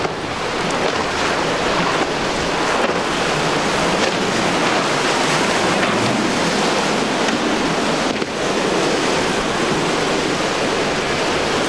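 Surf and rushing water from breaking waves and boat wake, with wind buffeting the microphone.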